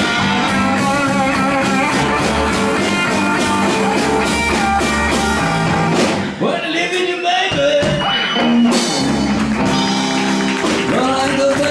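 Live blues band playing a slow blues instrumental passage, electric guitar to the fore over bass and drums, with bent notes. The bass drops out for about a second just past the middle.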